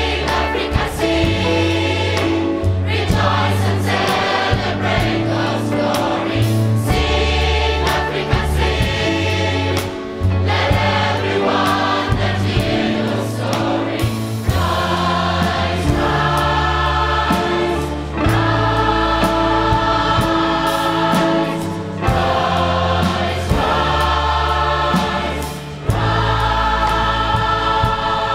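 Large mixed choir singing in harmony, backed by a symphony orchestra and hand drums, with held low bass notes and a steady beat, in phrases separated by brief breaths.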